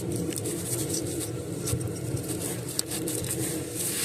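Faint clicks and rubbing of plastic as the gray locking tab on an ignition coil's electrical connector is worked back by hand, over a steady low mechanical hum.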